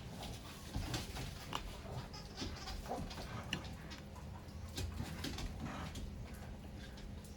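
Faint, scattered light clicks and taps of small reel parts being handled, with dogs making small noises in the background.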